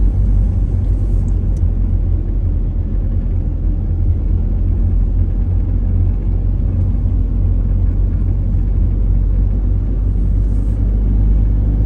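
Steady low rumble of a car driving at road speed: tyre and engine noise as heard inside the moving car.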